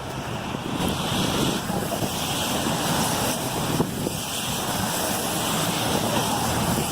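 Wind buffeting the microphone as a steady, rushing noise.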